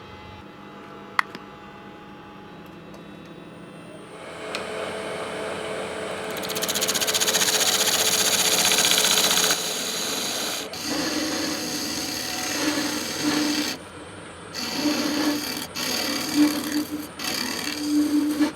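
Power tool working the cast resin shift-knob blank. It is quiet at first with a single click, then starts up about four seconds in and runs loud and steady for a few seconds. After that it runs in short bursts with a low hum under each burst.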